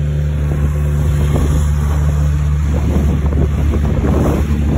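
Small aluminium fishing boat's outboard motor running steadily underway, a constant low hum, with wind buffeting the microphone and choppy water rushing and splashing against the hull.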